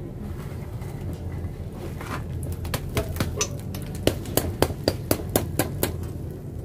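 A stone pestle knocking against a wire grill basket and the baked mud crust around a clay-roasted duck, chipping the crust off. A quick run of sharp clinking knocks, about four a second, starts about two and a half seconds in.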